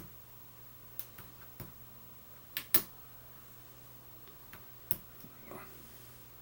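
Scattered sharp metallic clicks, about ten of them at irregular spacing and the loudest near the middle, as a hook pick works the pins of a pin-tumbler challenge lock held under a tension tool.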